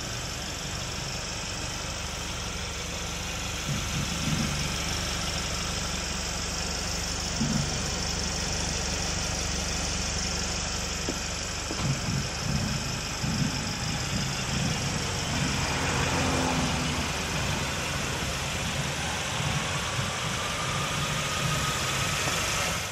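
A vehicle engine idling steadily under a constant hiss, with a few soft low bumps; the sound cuts off abruptly at the end.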